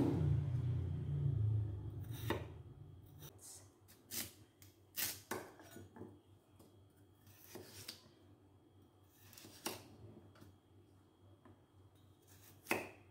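Kitchen knife slicing potato and carrot on a plastic cutting board: scattered sharp chops against the board, a second or two apart, the loudest near the end. A low hum fades out in the first three seconds.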